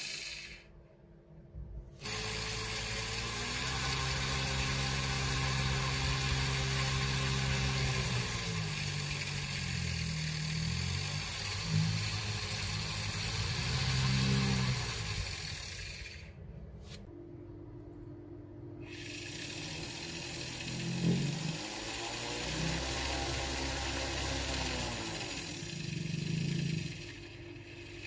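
Three small DC motors belt-driving a propeller fan shaft, whirring steadily, with the pitch rising and falling as the speed controller is turned. The sound drops away briefly near the start and again about halfway through.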